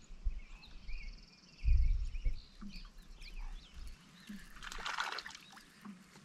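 Outdoor lakeside sound: birds chirping and a fast trill early on, a low bump about two seconds in, then a short splash of water about five seconds in.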